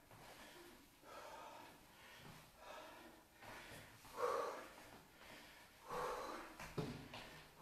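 A man breathing hard from exercise, short puffs of breath every second or so, the loudest about four seconds in and again at six seconds.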